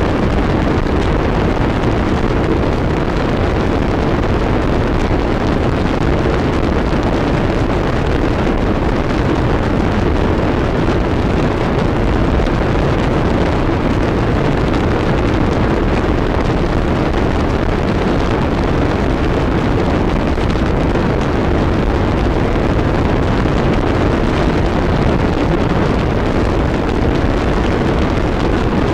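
Harsh noise wall: a loud, unchanging wall of dense electronic noise, heaviest in the low and middle range, with no rhythm, pitch or breaks.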